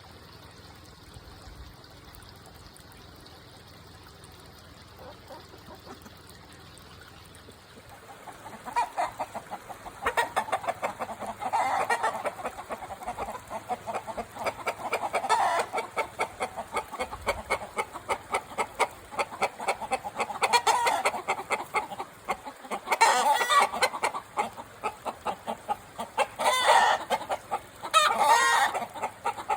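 Chickens clucking, with rapid strings of clucks starting about eight seconds in and several louder cackling bursts after that.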